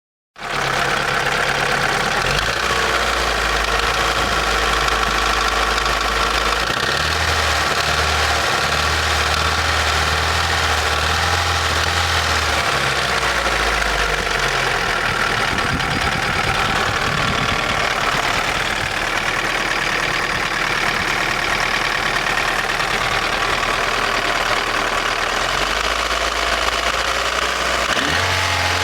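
Daewoo Nexia N100's 1.5-litre 8-valve four-cylinder engine running with a knock. The hydraulic lifters have already been replaced, so the knock is not coming from them.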